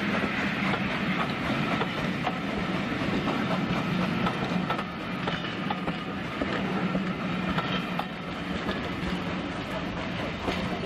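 Passenger coaches of a heritage train rolling past close by on the track, wheels rumbling steadily with repeated clicks over the rail joints as the train pulls away.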